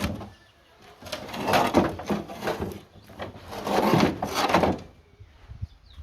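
Two long, rough scrapes, each about a second and a half, with a short pause between: building material being worked or dragged.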